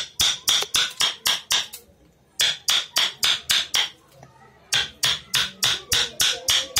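A hammer striking a carving chisel into wood in quick, even blows, about four a second. The blows come in three runs with short pauses between them.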